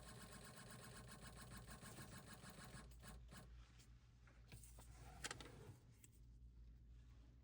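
Faint whine of a desktop CNC router's stepper motors as the spindle is jogged, lasting about three seconds. Softer rubbing noises and a single click follow.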